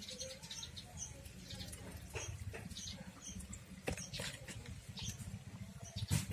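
Faint outdoor background: scattered short high chirps and clicks over a low steady rumble, with one sharper click near the end.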